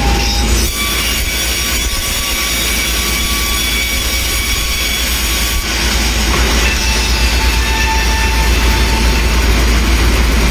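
A sawmill running with a steady, loud mechanical noise and a deep low rumble, with thin high-pitched squeals that come and go.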